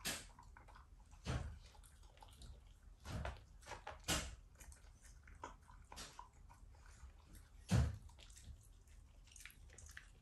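A Shiba Inu's wet mouth noises: scattered smacks, licks and chewing sounds at irregular intervals, about five of them louder than the rest.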